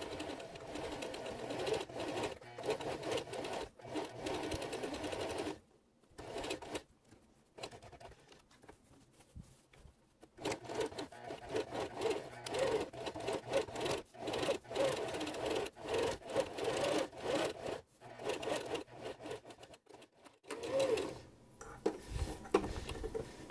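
Home sewing machine with a zipper foot stitching, in stretches: it runs for the first few seconds, pauses for about five seconds, then runs again in short bursts with brief stops until near the end. A few low bumps follow as the fabric is handled.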